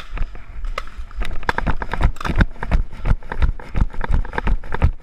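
Running footsteps of a paintball player wearing a body-mounted camera: a quick, irregular series of thuds and crunches, about three strides a second.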